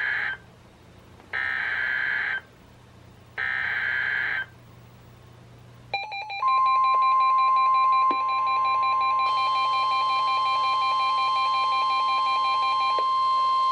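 Emergency Alert System end-of-message data bursts from NOAA Weather Radio: three short, harsh, buzzy bursts about a second apart. About six seconds in, weather radio alarms start: the steady 1050 Hz warning alarm tone with a warbling alarm under it, and further steady tones join a few seconds later as several receivers sound at once.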